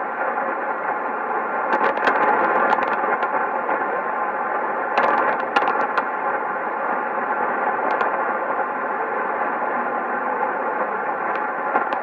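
Sony ICF-2001D shortwave receiver tuned to a weak AM signal at 3375 kHz on the 90 m tropical band, heard as steady hiss with sharp static crashes, in clusters about two seconds in and again around five to six seconds, then a few single cracks.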